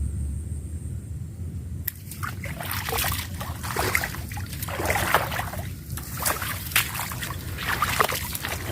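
Swamp water sloshing and splashing irregularly, starting about two seconds in, as a line snagged on roots underwater is worked free.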